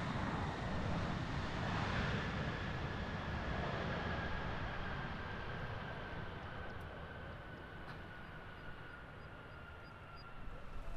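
Boeing 737-800's CFM56 jet engines on the landing roll-out: a rushing jet noise with a whine that slowly falls in pitch, fading as the airliner rolls away down the runway.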